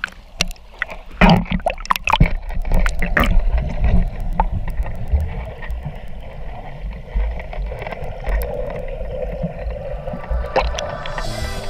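Water splashing and slapping against a waterproof camera at the surface, with sharp splashes in the first few seconds, then the dull, muffled rumble of the camera held underwater.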